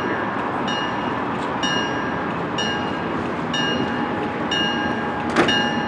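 A bell ringing steadily, about one strike a second, over the steady rumble of an approaching diesel train. A single sharp click about five and a half seconds in.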